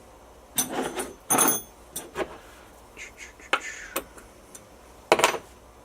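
Several short metallic clinks and clatters, spaced about a second apart, of Allen keys being picked up, tried on a screw and put down.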